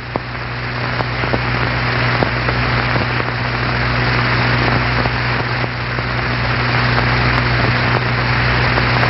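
Rushing wind sound effect that swells gradually, over a steady low hum from the old film soundtrack, with a few faint clicks.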